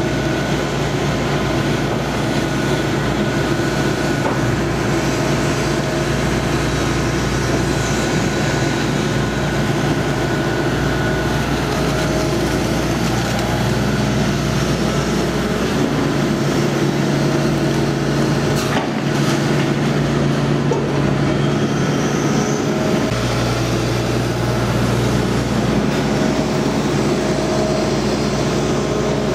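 Hitachi Zaxis 225 USRLC excavator's diesel engine running steadily under load, with its hydraulics working as it digs wet clay and swings a full bucket over a truck. The engine note shifts partway through as the load changes.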